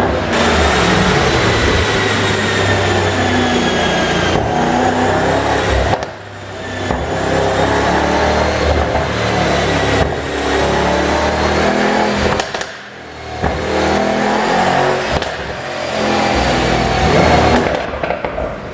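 Mercedes-AMG E63's twin-turbo V8 revving hard and easing off several times, with sudden drops in sound as the throttle is lifted. The engine is tuned to pop and crackle through the exhaust on overrun.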